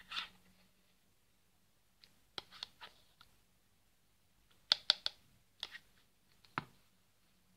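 Metal spoon stirring cottage cheese in a plastic tub. The spoon clicks and scrapes against the tub in several short clusters.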